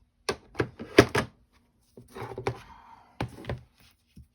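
A run of sharp taps and thunks as a red ink pad is tapped onto a rubber sentiment stamp to ink it, with a short scuffing rustle a little past halfway and two more thunks near the end.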